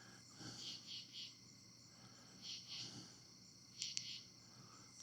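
Faint night insect chorus: a steady high-pitched trill, with groups of two or three short raspy calls every couple of seconds.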